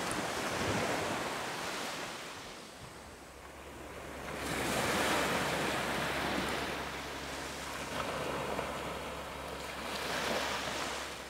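Small waves breaking and washing up a sandy beach, the surf swelling and falling back about every five seconds.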